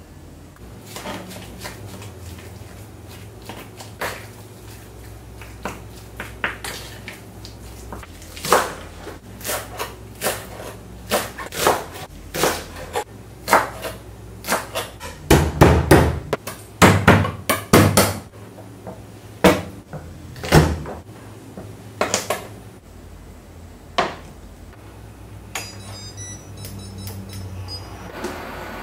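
Kitchen work: irregular knocks, clicks and clatter of utensils, containers and dishes being handled, with a cluster of heavier thuds in the middle, over a low steady hum.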